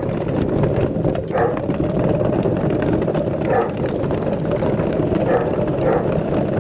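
Dog treadmill running under a running pitbull puppy: a steady rumble, with short sounds recurring every second or two.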